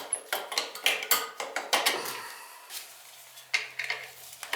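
Metal tools and oil burner parts clinking and scraping as the nozzle is taken out of a Beckett oil burner for inspection: a quick run of sharp clinks, a short lull, then a few more near the end.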